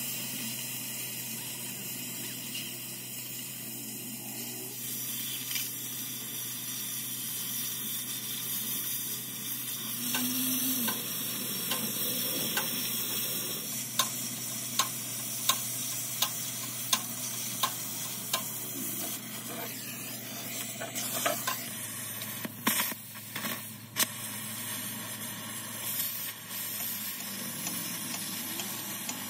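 Oxy-fuel cutting torch cutting through steel plate: a steady hiss and sizzle of the flame and molten metal. Sharp pops come at a steady pace about halfway through, with a few more later on.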